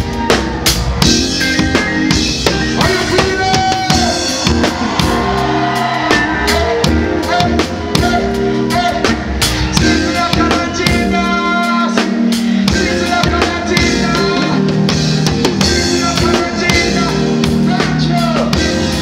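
Live reggae band playing loud through the stage PA, led by a drum kit with sharp snare, rimshot and bass-drum hits over bass and keyboard chords. The bass drops out briefly around the middle.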